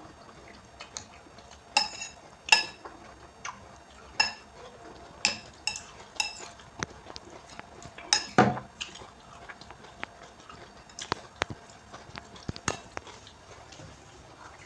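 Metal cutlery clinking against a bowl while eating instant noodles: irregular sharp clinks, several of them ringing briefly, with a duller, deeper knock about eight seconds in.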